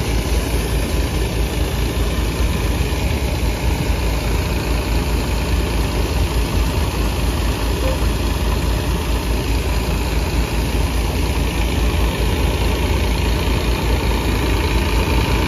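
Massey Ferguson 9500 diesel tractor running steadily, driving a threshing machine: a continuous low engine rumble mixed with the whir and rattle of the working thresher.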